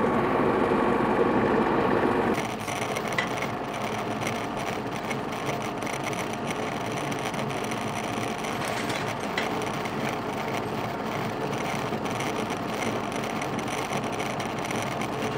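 Tractor diesel engine running steadily, a little louder for the first two seconds or so. Meanwhile the hydraulics are connected and the anhydrous ammonia toolbar's wing is let down.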